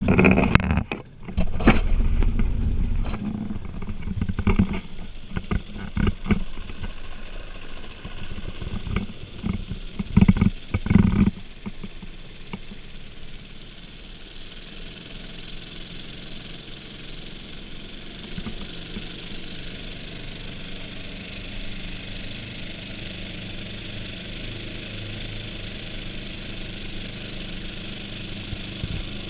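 Small outboard motor pushing an aluminium jon boat along at speed: a steady drone with a hiss of wind and water over it. For the first eleven seconds or so, loud irregular knocks and thumps cover it.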